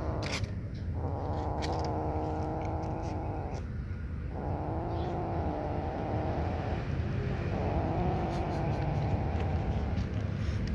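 A kitten growling over its dry kibble, three long low growls of about two and a half seconds each with short breaks between them, the food-guarding growl of a kitten eating beside its siblings. Faint crunching clicks of kibble and a steady low rumble lie underneath.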